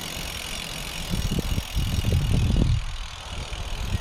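Riding noise from a road bike on the move: a steady hiss with an irregular low rumble that grows louder about a second in and eases just before three seconds.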